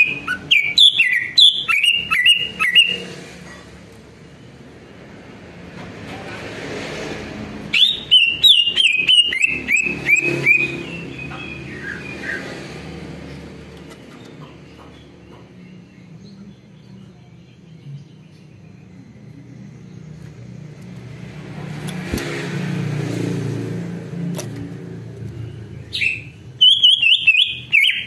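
Male green leafbird (cucak ijo) singing in three bursts of rapid, scratchy chirps and trills, at the start, about eight seconds in and near the end. A low rumble swells in the quiet gaps between the bursts.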